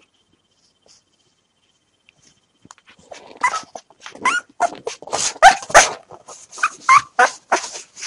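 Newborn Rafeiro do Alentejo (Portuguese Mastiff) puppies whimpering and squealing in a rapid string of short high cries, starting about three seconds in, with bedding rustling under them. The puppies are hungry and waiting to be hand-fed milk.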